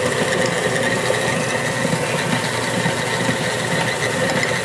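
Electric stand mixer running steadily, creaming butter and sugar: an even motor hum with a steady high whine.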